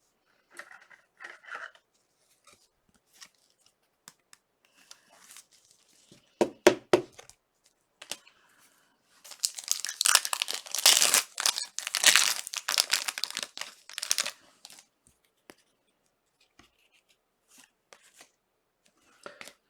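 Wrapper of a trading-card pack being torn open and crinkled, a rustling tear lasting about five seconds starting about halfway in, after a few short knocks of the pack being handled.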